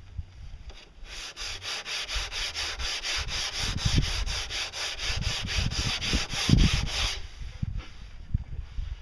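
Hand sanding of a curved wooden pontoon hull with a sanding block: quick, even back-and-forth scratching strokes, about five a second, with a few dull thumps mixed in. It starts about a second in and stops about seven seconds in.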